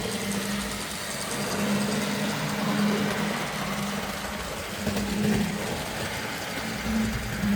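Model train locomotive running at speed around the track: a steady electric motor hum over the rolling of wheels on rail. The hum swells and fades every second or two.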